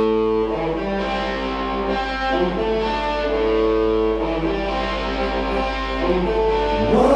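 Live rock band playing, with electric guitars to the fore holding sustained, changing chords.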